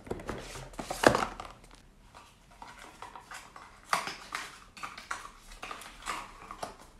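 Small cardboard gift box being handled and opened: a string of taps, knocks and rustling scrapes as the card flap is lifted and a paper insert is pulled out, with the sharpest knock about a second in.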